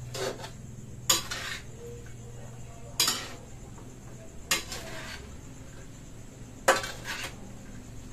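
A cooking utensil scraping and clanking against a pan as pancit noodles with cabbage are stirred and tossed, in about five separate strokes a second or two apart.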